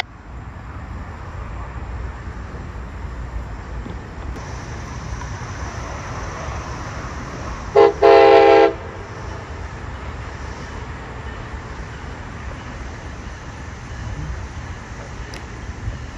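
Locomotive horn of an approaching train sounding a quick blip and then a short blast of under a second, about eight seconds in, over a steady low rumble.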